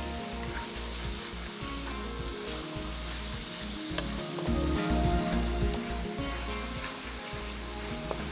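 Spiced chicken mince sizzling as it is fried and stirred in oil in a pan, its moisture cooking off. There is a sharp click about four seconds in and another near the end.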